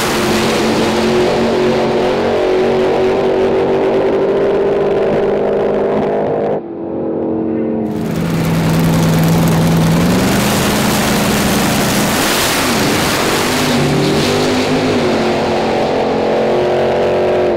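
Supercharged drag cars' engines running hard down the strip, a loud, steady, pitched drone. The sound changes abruptly about six and a half seconds in, and the engine pitch dips and climbs again later on.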